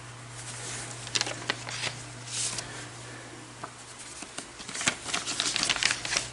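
Paper stickers being handled: rustling and crinkling with small clicks and taps, a scratchy patch about two and a half seconds in and a flurry of ticks near the end, over a steady low hum.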